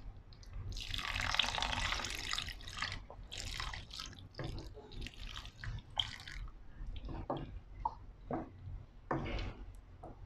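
Water poured into a pan of thick beef curry to thin the gravy, loudest for a couple of seconds about a second in. A wooden spatula stirs and sloshes through the sauce throughout, in short scattered bursts.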